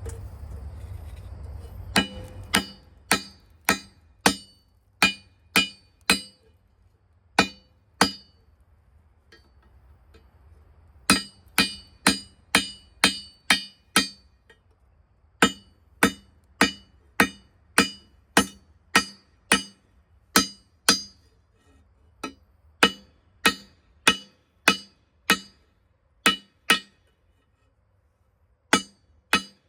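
Hand hammer striking hot steel on an anvil while forging a knife blade, each blow ringing with a bright metallic tone. The blows come in runs of several, about two a second, with short pauses between runs.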